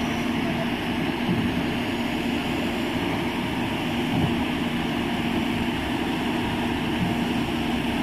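Schwing 42-M truck-mounted concrete pump running steadily under load, its engine holding one constant tone, with a slight surge about every three seconds.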